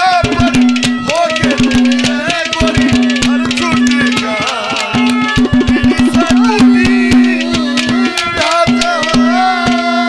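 Live Haryanvi ragni accompaniment between sung verses: rapid hand-drum strokes over a steady held note and a wavering melody line, with brief breaks in the held note.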